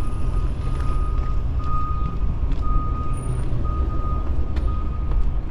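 A vehicle's reversing alarm beeping steadily, one high tone repeating about once a second, over a constant low rumble.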